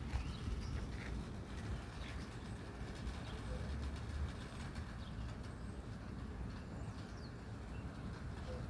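Birds calling outdoors: a few short, faint chirps scattered through, over a steady low rumble.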